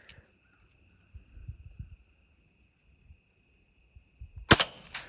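A single BB gun shot, a sharp crack, about four and a half seconds in. Before it there is a faint steady high-pitched whine and a few soft handling thumps.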